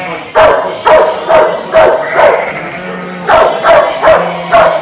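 Kelpie working dog barking at sheep to push them along, about nine sharp barks in two quick runs with a short pause near the middle.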